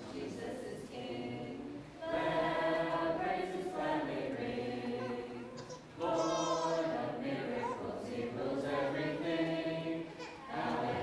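A group of children and adults singing a song together, in sung phrases; the singing gets louder about two seconds in.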